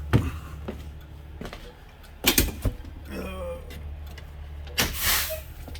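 A few sharp knocks and clunks, loudest in a quick cluster about two and a half seconds in, and a short hiss near the end, over a steady low hum.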